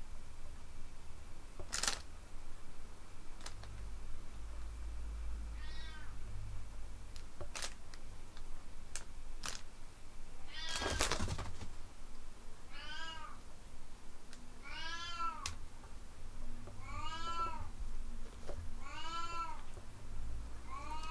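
Domestic cat meowing about six times, mostly in the second half, each call rising and then falling in pitch. Scattered sharp clicks and a brief rustle about eleven seconds in.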